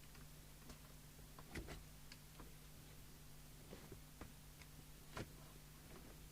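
Near silence over a steady low mains hum, with a few faint scattered clicks and taps from test probes touching the radio's chassis and power leads while checking for a floating chassis.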